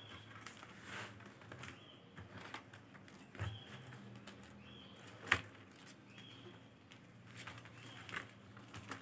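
Faint, scattered clicks and rustles of faceted beads knocking together as the beadwork is handled and the thread is pulled through, with one sharper click about five seconds in.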